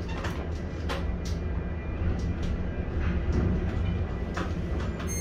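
Container gantry crane machinery running: a steady low drone with a thin steady whine above it, and scattered short clicks and knocks. The spreader is being worked over a container.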